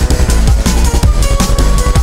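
Loud electronic dance music with heavy bass and fast, regular drum hits.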